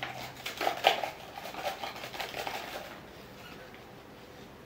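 Paper crinkling and rustling as a folded paper slip is handled and unfolded, a quick run of small crackles that dies away about three seconds in.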